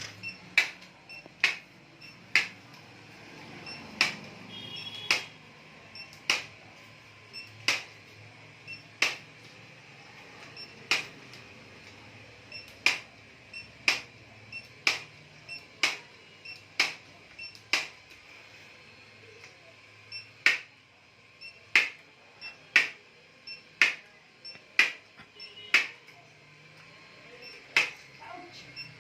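Chiropractic impulse adjusting gun firing repeatedly, a sharp spring-loaded click with each thrust, about one a second with a few short pauses.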